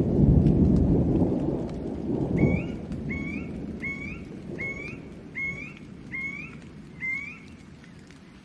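Thunder rumbling loudly and fading away over the first few seconds, under steady rain. Then a bird calls seven times, short notes each ending in an upward hook, evenly spaced about one and a half a second.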